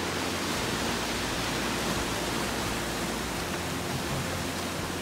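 Wind blowing on the microphone, a steady rushing hiss with a low buffeting rumble, over the rush of a fast mountain stream.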